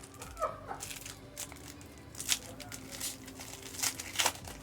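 Foil trading-card pack wrappers crinkling and tearing as packs are opened, with several sharp crackles, the loudest about two and a half and four seconds in.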